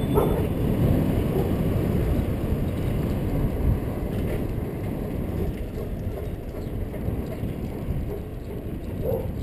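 Bicycle rolling on asphalt: a steady low rumble of tyres and wind rushing over the camera's microphone, with a couple of brief knocks or rattles from the bike.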